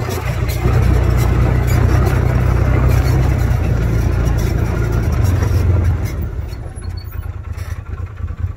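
Side-by-side UTV's engine running as it drives, a loud, steady low drone that eases off about six seconds in.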